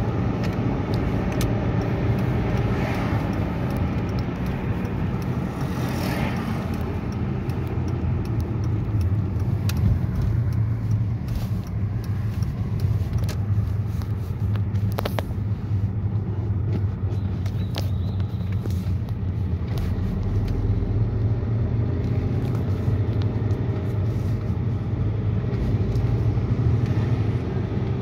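Volkswagen Golf Mk4 heard from inside the cabin while driving: a steady low engine hum at low revs, mixed with road noise, and a few short clicks.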